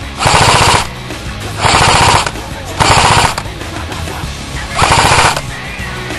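Airsoft electric gun (AEG) firing four short full-auto bursts, each about half a second long, with rapid even shots, over a background music track.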